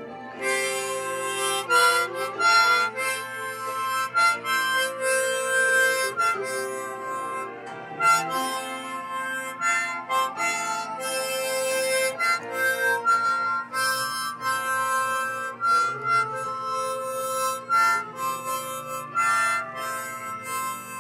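Harmonica playing a melody of held and bending notes, starting about half a second in, over a recorded instrumental backing track.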